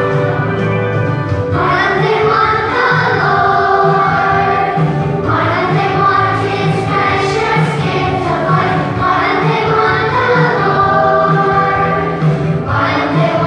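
Children's choir singing a song with instrumental accompaniment. A short instrumental lead-in comes first, and the voices enter about one and a half seconds in.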